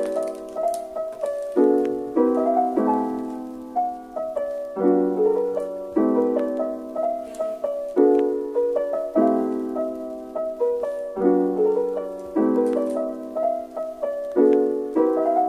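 Background piano music: a gentle piece of chords and melody, each note struck and left to fade.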